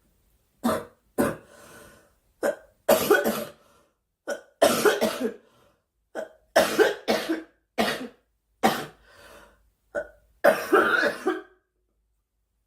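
A girl coughing repeatedly: sharp coughs, some single and some in quick runs of two or three, with short pauses between.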